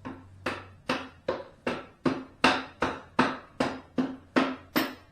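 Hammer tapping the rear axle through the motorcycle's wheel hub: about thirteen sharp metallic strikes at a steady pace of roughly two and a half a second, each with a short ring.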